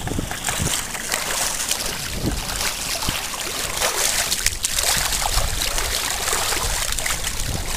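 Water rushing and splashing along the side of a moving sail-rigged canoe, a child's bare feet dragging in it and kicking up spray.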